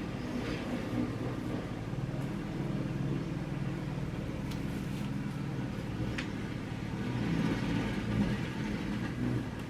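A steady low mechanical hum, with a few faint clicks in the middle.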